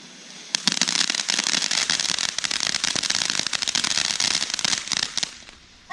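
Small consumer firework crackling: a fast, dense run of sharp pops that starts about half a second in and dies away after about five seconds.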